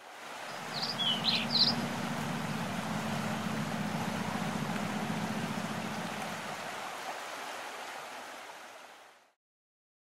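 Stream water cascading over rocks, a steady rush, with a few short bird chirps about a second in; the sound fades out near the end.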